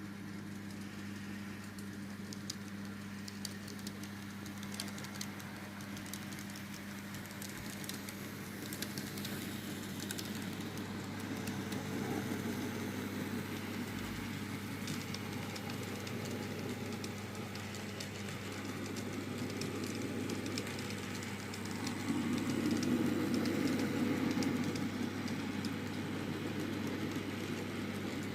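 N gauge model Class 124 six-car DMU running on its track, its wheels and motor giving light clicking over a steady low hum. It grows louder for a few seconds about 22 seconds in, as the train passes closer.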